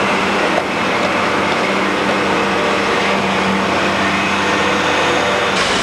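Diesel engine of heavy construction machinery running steadily, a continuous drone with a low hum, as concrete is loaded into a crane's bucket from a truck.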